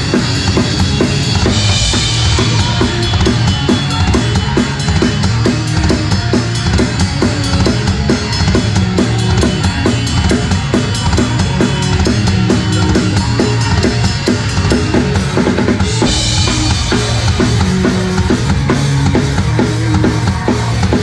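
Rock drum kit played fast in a live hardcore punk song, with the band's bass and guitars underneath. Cymbal crashes ring out about two seconds in and again about three-quarters of the way through.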